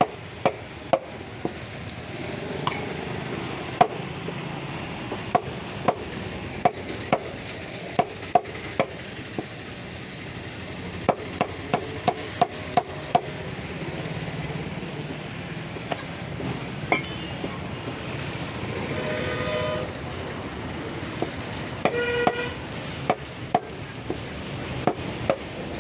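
Mutton being chopped into small pieces, sharp chops at irregular intervals, sometimes several in quick succession. A vehicle horn honks twice, a longer honk about two-thirds of the way in and a short one shortly after.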